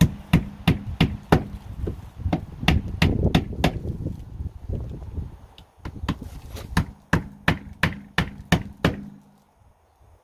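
Hammer driving nails: a run of sharp strikes, about three a second, with a short break about halfway through, stopping about nine seconds in.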